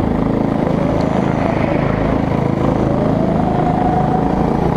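RiMO rental go-kart's small engine running loud and close on board, its pitch climbing from about two and a half seconds in as the kart accelerates.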